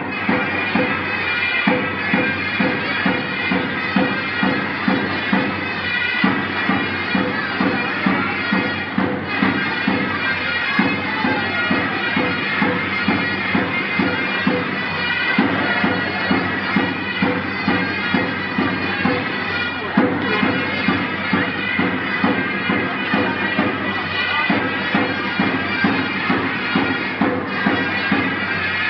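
Turkish folk dance music on zurna and davul: shrill, reedy shawm melody over a steady, regular drum beat.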